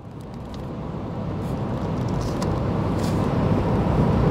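Car road noise heard from inside the cabin while driving on a highway: a steady rumble of tyres and engine that fades in and grows louder over the first couple of seconds.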